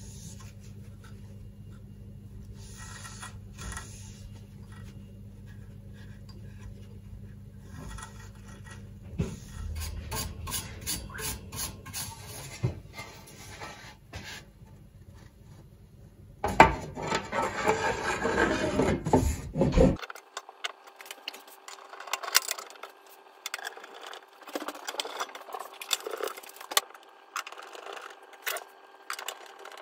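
Cloth wiping and rubbing over the open antenna tuner's chassis and coils, with small sharp handling clicks, over a low steady hum. About two-thirds of the way through comes a loud clattering scrape lasting a few seconds as the sheet-metal lid is put back on. It is followed by lighter scattered clicks and knocks.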